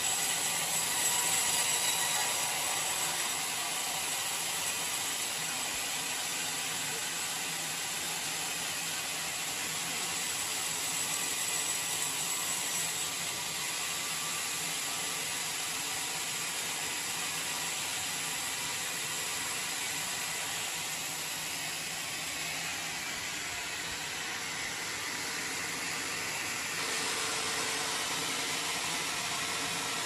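Vertical band sawmill running, its blade cutting lengthwise through a mahogany log with a steady hissing whir. The sound changes near the end, with a lower hum coming in.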